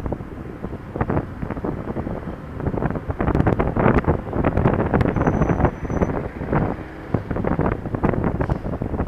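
Wind buffeting the camera's microphone on a moving Honda Dio scooter, over road and engine noise; the buffeting rises and falls in irregular gusts.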